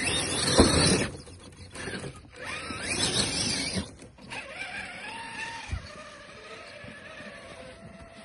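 Electric motor and gearing of a Traxxas TRX-4 RC crawler whining as it climbs over snowy rocks and leaves, with loud bursts of crunching and scrabbling twice in the first four seconds. After that the whine goes on more quietly and steadily.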